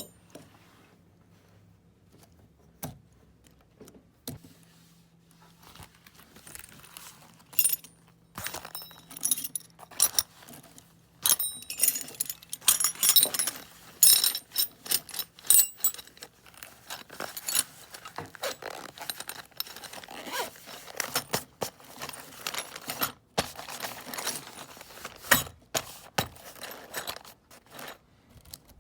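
Small metal hand tools clinking, jangling and scraping against one another as they are handled and packed. There are a few scattered clicks at first, then busy clattering from about eight seconds in.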